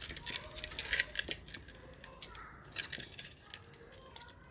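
Handfuls of washed goat-head meat being squeezed out and dropped into a pot of boiling water: a run of short, irregular wet splashes and clicks that thins out after about three seconds.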